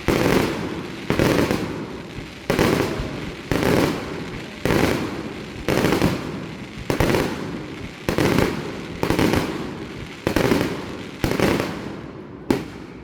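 Fireworks shells bursting in a steady series, about one loud boom a second, each boom fading away before the next.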